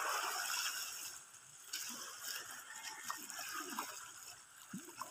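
Faint shallow sea water trickling and lapping at the shoreline, with a few small splashes.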